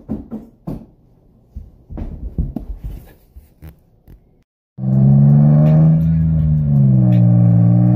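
Scattered knocks and scuffs as a person moves about on a rug and wooden floor. Then, after a sudden cut about four and a half seconds in, a loud steady low drone inside a moving car, its tones dipping in pitch briefly before settling.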